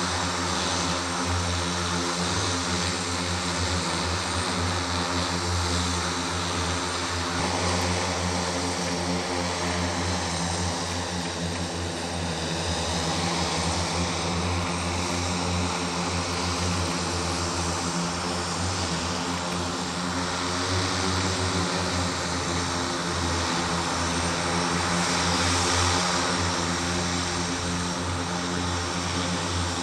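The LIFT Hexa electric VTOL aircraft's 18 electric motors and propellers running steadily as it hovers: a dense propeller whir with several steady humming tones underneath, swelling slightly near the end.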